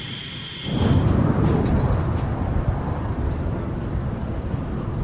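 Airbus A320 jet engines on a low pass: a high whine fades as a sudden loud, low rumble sets in just under a second in and carries on steadily.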